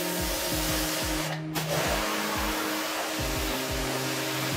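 Pressure washer spraying water onto a car's paint and glass, a steady hiss that cuts out briefly about a second and a half in, under background music with a steady beat.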